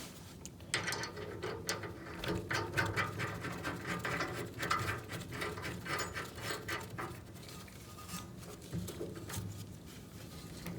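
Irregular light clicks and clatter of hand tools being worked and handled, busiest over the first seven seconds and then sparser.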